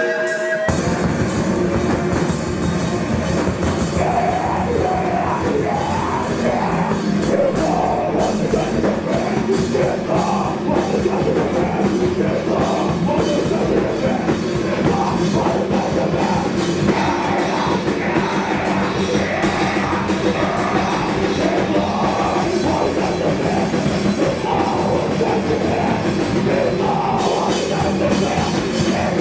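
Live heavy rock band playing loud: electric guitar, bass guitar and drum kit, with vocals over them. The full band comes in about half a second in and plays on without a break.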